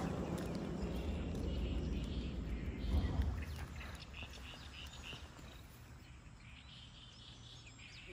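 Outdoor ambience: a low rumble of wind and handling on the microphone for the first few seconds, then quieter, with faint birds chirping.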